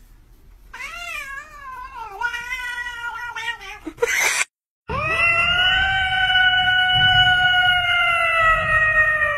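Domestic cats yowling: a wavering, drawn-out yowl over the first few seconds, a short noisy burst and a sudden break, then one long, steady meow that slowly falls in pitch near the end.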